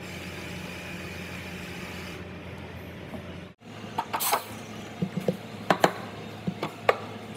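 Steady low hum of coffee-bar machinery, then a run of sharp clinks and knocks from cups and steel and glass barware being handled, the loudest near the end.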